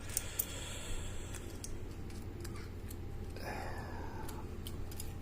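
Scattered faint light clicks and handling noise from the freshly opened disc-detainer padlock and its pick being handled, over a low steady hum.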